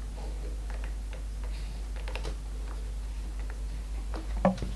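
Light, irregular clicks and taps, with a few louder ones near the end, over a steady low hum.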